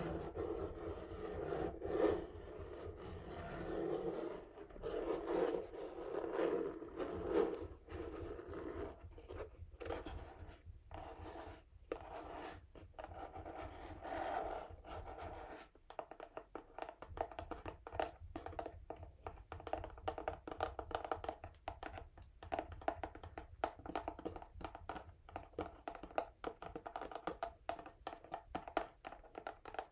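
Fingernails scratching and tapping on a textured cardboard box. Long rasping scratches come in swells at first, then give way to quicker, sharper taps and short scratches.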